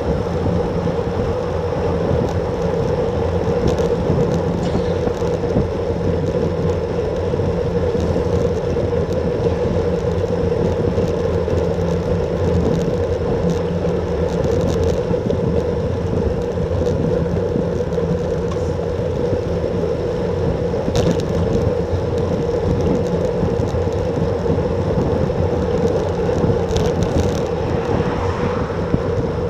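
Steady wind noise over the microphone and road-bike tyres humming on asphalt at a little over 30 km/h, with a few faint ticks.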